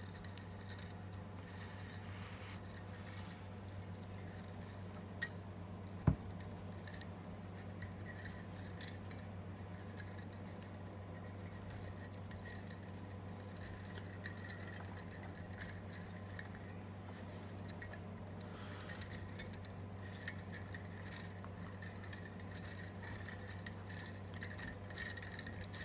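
Faint handling noises as thin copper lead wires are pulled through the pin holes of a plastic CRT tube base: light ticks, scrapes and rustles over a steady low hum, with one sharp knock about six seconds in.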